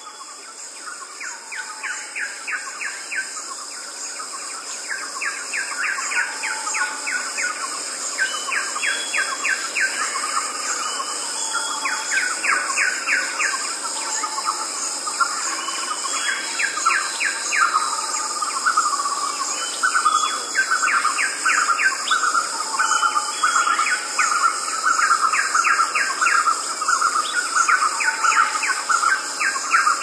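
Tropical forest ambience: a steady high-pitched chorus of crickets with birds calling over it. The birdsong comes in short bursts of rapid chirping notes every few seconds, and a lower call repeats about twice a second from about halfway on. The sound fades up over the first few seconds.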